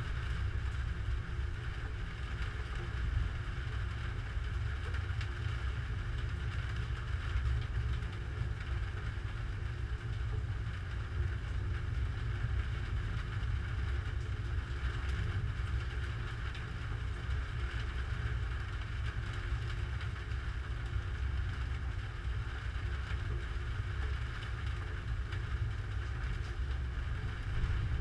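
Steady low rumble of storm wind on a GoPro camera's microphone, with no distinct thunderclap.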